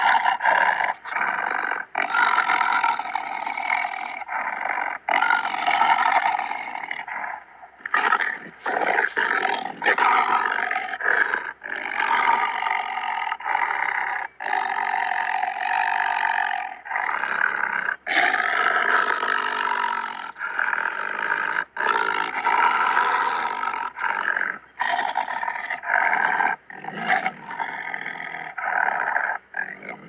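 Malayan tiger growling and roaring in a long, rough series of calls, broken by many brief, sudden gaps.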